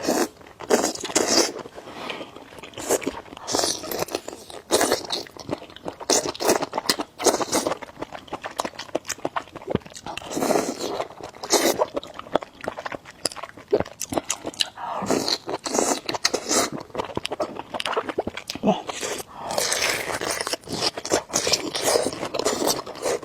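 Close-miked eating: repeated biting, crunching and chewing, with frequent short clicks and wet mouth noises.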